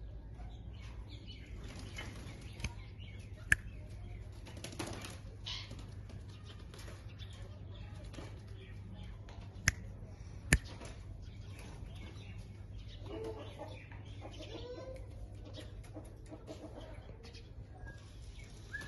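Ringneck parrot making short, soft chirps and rustling movements over a low steady hum. Three sharp clicks stand out as the loudest sounds: one early, then two close together in the middle.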